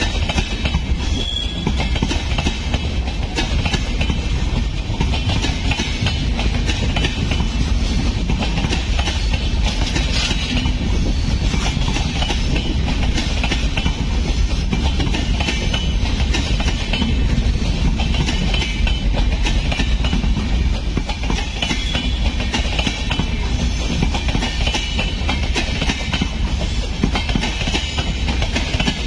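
Passenger express train coaches rolling past on the adjacent track, with a steady wheel-on-rail rumble and rattle.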